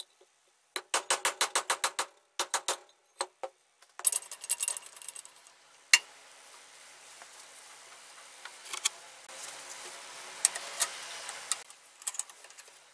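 A socket ratchet clicking in quick runs as a nut is turned. Then a two-jaw bearing puller's screw is wound down to draw a ball bearing off the groove cutter's motor shaft, with metallic clicks and rattles and one sharp metal crack about six seconds in.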